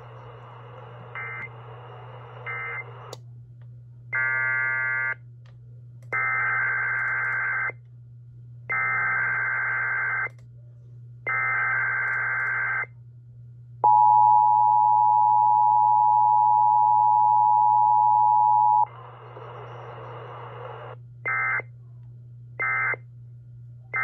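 Emergency Alert System test tones relayed by an EAS encoder/decoder. First come four SAME data-header bursts of about a second each. Then the two-tone attention signal holds steady for about five seconds, followed by a brief stretch of hissy audio and three short end-of-message data bursts, all over a steady low hum.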